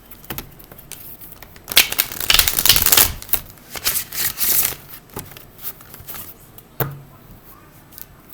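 A deck of tarot cards being shuffled by hand: a long flurry of rapid card flicks about two seconds in, then a few shorter bursts and a single sharp tap near the end.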